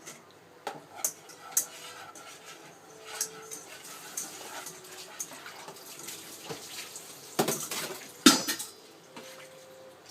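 Dishes and cutlery clinking and clattering as they are washed by hand, with two louder knocks near the end.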